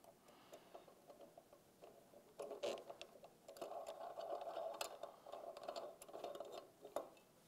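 Faint scraping and light ticking of a steel Helicoil insertion tool being turned in the tapped threads of an aluminium engine case as the coil insert is wound in. The sounds begin about two and a half seconds in and stop shortly before the end.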